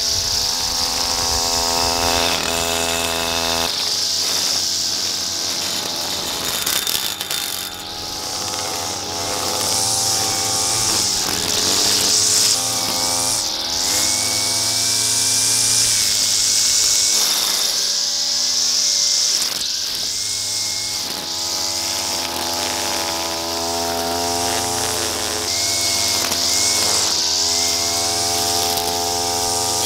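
String trimmer running continuously, its pitch rising and falling as it is throttled, with the spinning line whipping through grass.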